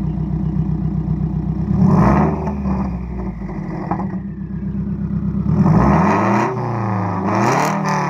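Subaru WRX's turbocharged flat-four idling through an aftermarket exhaust, then free-revved while parked: a short rev about two seconds in, a longer rev near six seconds, and a quick blip shortly after.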